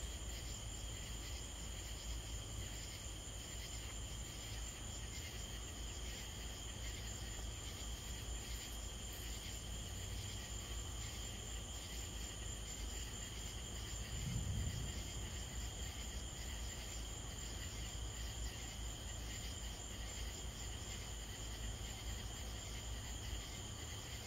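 Steady night chorus of crickets and other insects, a continuous high-pitched trilling, over a low steady rumble. A brief low sound comes about fourteen and a half seconds in.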